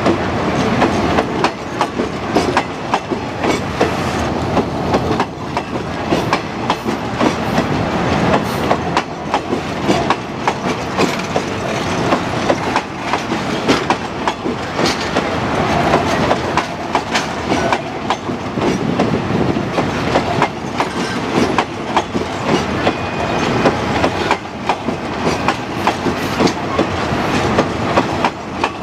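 Eastern & Oriental Express passenger carriages rolling past close by: a steady rumble of wheels on track with a running stream of clicks as the wheels cross rail joints.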